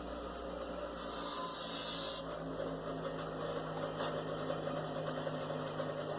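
An older-style bench grinder, about 2 horsepower, running with a steady motor hum; from about one second to two seconds in a metal part is pressed to the wheel, giving a loud hissing grind, as a notch is cut into it.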